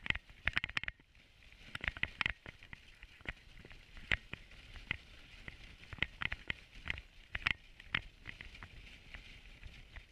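Dog sled running along a snowy trail: irregular clicks, knocks and creaks from the sled's frame over a steady hiss of the runners on snow.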